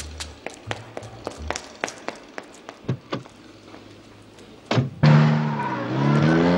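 Film score with a wood-block click about three times a second over low bass notes, then a car door shutting with a thump. From about five seconds in, a taxi's engine, an FSO Warszawa's, revs loudly as it pulls away, its pitch dipping then rising again, and cuts off suddenly near the end.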